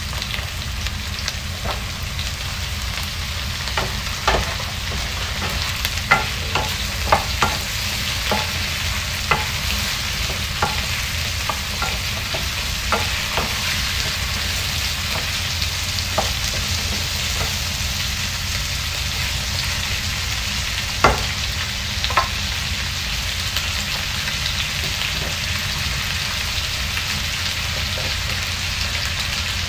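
Cubed squash sizzling in a wok with sautéed onion, stirred with a wooden spatula that knocks against the pan now and then over a steady frying hiss. The knocks come mostly in the middle part, one louder knock a little after 20 seconds in.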